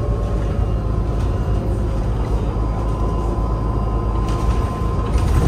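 Cabin noise of a battery-electric low-floor city bus under way: a steady low road and tyre rumble with a thin, steady whine from the electric drive.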